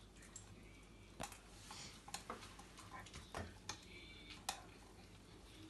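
Rottweiler puppy chewing raw food from a hand, with irregular sharp crunching clicks of its teeth.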